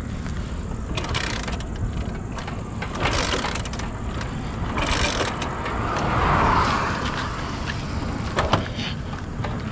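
Road vehicle noise: a steady low rumble with a vehicle passing, loudest about six to seven seconds in, and a few short knocks near the end.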